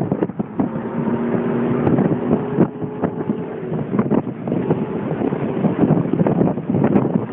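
Wind buffeting the microphone of a moving Porsche 911, with the car's flat-six engine audible as a steady note for a couple of seconds about a second in.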